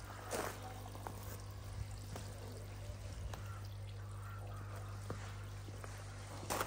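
Water jetting from a pond pump's return outlet and splashing steadily onto the pond surface, over a steady low hum.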